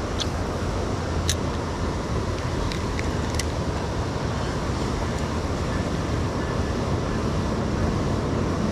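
Steady rush of flowing river water, running high after rain, with a few faint clicks near the start.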